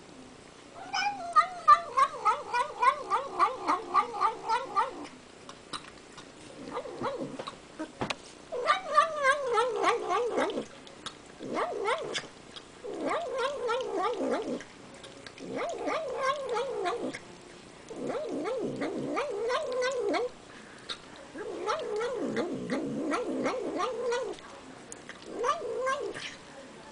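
A cat making "nom nom nom" sounds while eating: pitched, rapidly pulsing murmurs in about eight bouts of one to three seconds, with short pauses between them.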